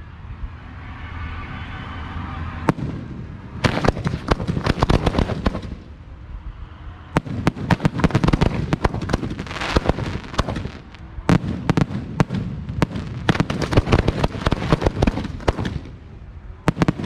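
Fireworks going off from mortar tubes: dense strings of sharp cracks and bangs in rapid clusters, after a softer lull at the start.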